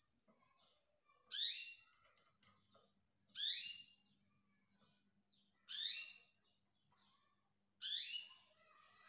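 Canary calling: a short chirp that sweeps up then down, repeated four times at about two-second intervals, with fainter twittering in between.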